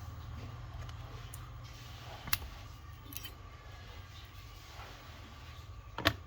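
Battery-cell spot welder firing twice onto 0.25 mm nickel strip: two sharp snaps about four seconds apart, the second louder, over a steady low hum.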